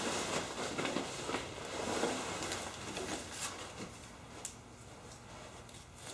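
Rustling and light knocks of items being handled and pulled out of a shipping box filled with packing peanuts, dying down after about four seconds.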